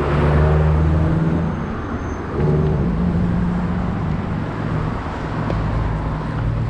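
A motor vehicle's engine running close by over road noise, its pitch stepping a couple of times.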